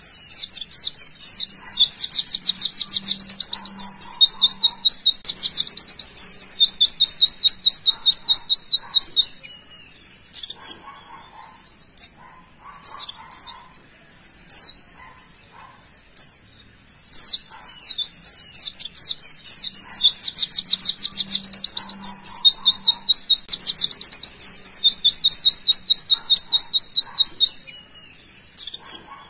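White-eye (pleci) singing its fast 'tembakan' song: long, rapid trills of high, quick down-slurred notes, each run lasting several seconds, heard twice, with scattered short chirps in between.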